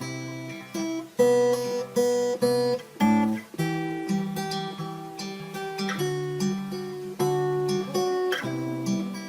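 Music: an acoustic guitar playing slow chords, each struck and left to ring, with no vocals yet.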